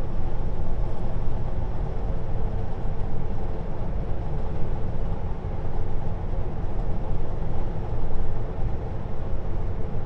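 Steady engine drone and road rumble inside the cab of a moving Kenworth W900L semi truck.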